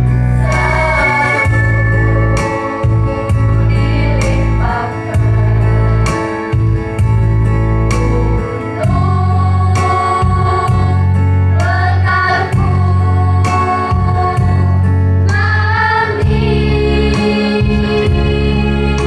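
A group of girls singing together into microphones over amplified backing music, the voices and accompaniment coming through a PA system. The accompaniment holds sustained low chords that change every few seconds.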